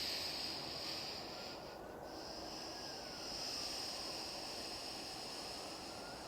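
A person breathing slowly and audibly through the nose as part of a nostril-breathing exercise: a long hissing breath, a short break about two seconds in, then another long breath.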